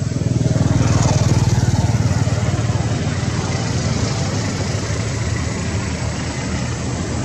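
A motor vehicle's engine running steadily, swelling about a second in.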